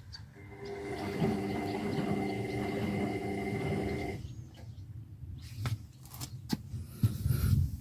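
Indesit EcoTime washing machine on the rinse of a Delicates 30 cycle: the drum motor runs with a steady whir for about four seconds, then stops. A few clicks and low sloshing thumps follow near the end.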